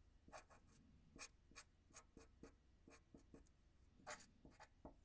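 Faint, quick pen strokes on paper: a dozen or so short scratches, the sound of small birds being drawn.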